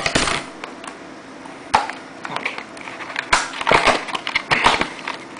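RAM kit packaging being cut and pried open with scissors: a run of irregular clicks, crackles and scrapes, busiest in the second half.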